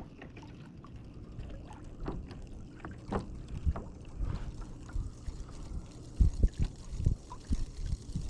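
Water slapping against a small boat's hull in gusty wind, with scattered light clicks and a run of low thuds in the last couple of seconds.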